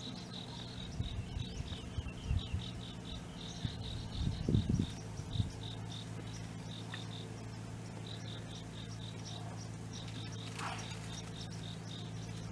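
Insects chirping in rapid, repeated high pulses with short gaps, over a steady low hum. A cluster of low thumps comes between about one and five and a half seconds in, and these are the loudest sounds.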